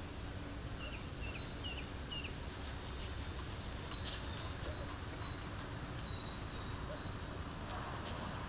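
Outdoor background: a steady low rumble, with a few short high bird chirps in the first couple of seconds and faint clicks about four seconds in.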